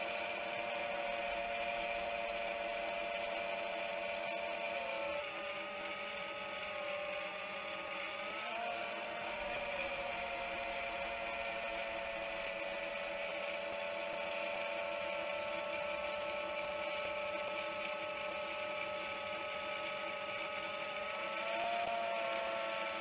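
Motors and propellers of a Chimera 7 long-range FPV quadcopter running at steady cruise power: a continuous whine with several pitches, which dips briefly twice early on and rises briefly near the end as the throttle changes.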